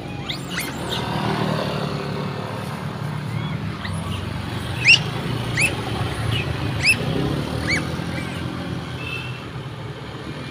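A vehicle engine running steadily with a low hum, broken by several short, high rising squeals, the loudest about five seconds in.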